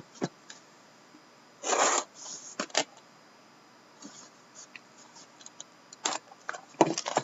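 Crinkling and tearing of a trading-card pack's foil wrapper in short bursts, the loudest about two seconds in, with a few light clicks and more rustling near the end.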